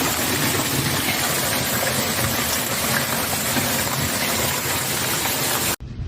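Heavy storm downpour pelting down: a loud, dense, even hiss that starts and stops abruptly.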